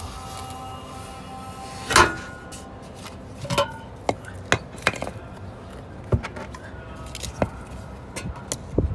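Metal tire levers knocking and clicking against a motorcycle wheel rim as the tire bead is pried off, with one sharp knock about two seconds in and a string of smaller clicks after it. Instrumental music plays underneath.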